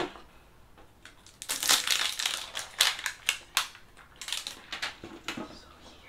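Clear plastic shrink-wrap being pulled off a tin and crumpled, crinkling in a run of sharp crackles from about a second and a half in.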